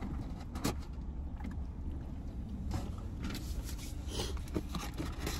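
Steady low hum of a car idling, heard inside its cabin, with scattered small clicks and rustles of food packaging and eating.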